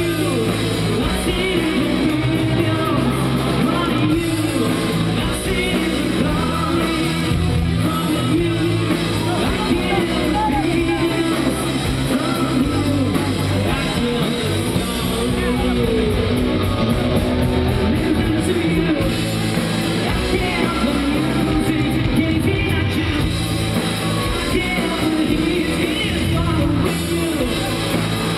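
Live rock band playing loudly, with electric guitar and a singer.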